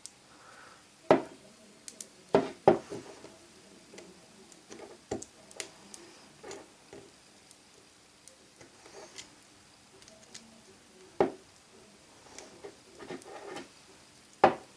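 Sharp, irregular clicks and taps of a metal blade and tools against an iPhone 4's frame and the work surface while the glued screen is pried up. About nine separate clicks, the loudest about a second in, two and a half seconds in and near eleven seconds.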